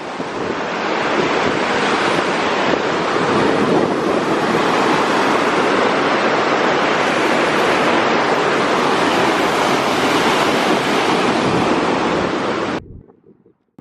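Loud, steady rushing of fast-flowing river water, cutting off suddenly near the end.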